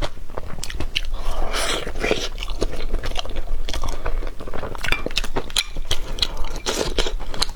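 Close-up mouth sounds of a person eating a boiled goose egg: wet chewing, smacking and biting clicks in quick succession.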